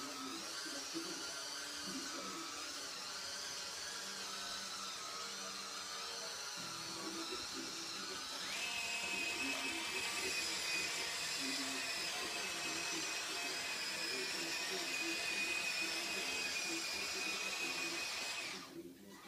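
Small electric drive motors and gearboxes of a radio-controlled Bruder CAT D11 toy bulldozer whining steadily as it drives and turns. About a third of the way in the whine gets louder and a higher tone joins it, and it cuts off shortly before the end.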